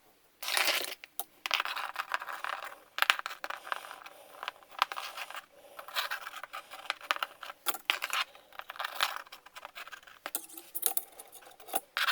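Steel recoil starter spring being wound by hand back into its starter housing: irregular bursts of metallic clicking and scraping as the coils slide into place.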